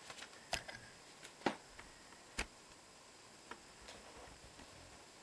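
Handling noise: a few sparse, faint clicks and taps, three sharper ones in the first two and a half seconds and fainter ticks after.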